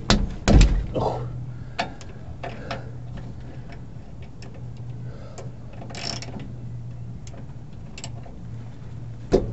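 Hand ratchet wrench clicking in short, irregular strokes while a shock absorber mount is worked under a motorhome. There is a loud metallic knock about half a second in and another at the end.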